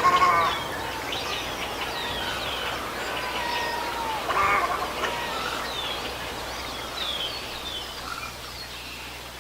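A heron giving a short harsh call twice, once at the start and again about four and a half seconds later, over a steady background of many small high chirps from other birds.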